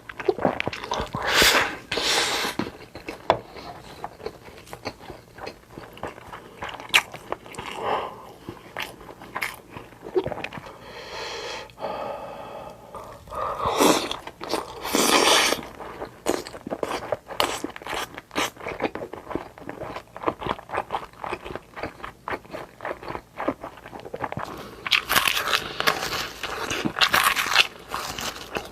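Close-miked eating of a Korean home-style meal: chewing and crunching mouthfuls with scraping and clicking, with several louder bursts of a second or two.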